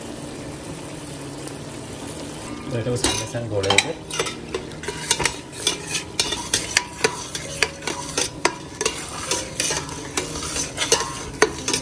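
A stirring utensil working a spice masala frying in hot oil in a pot: a soft sizzle, then from about three seconds in, repeated sharp, irregular clinks and scrapes against the pot as it is stirred.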